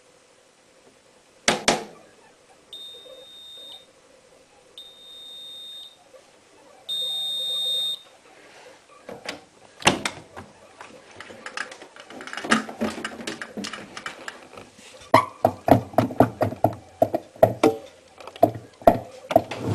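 Washing machine's electronic beeper sounding three one-second high beeps, the third louder, after a single click. A string of clicks and knocks follows, quickening in the second half.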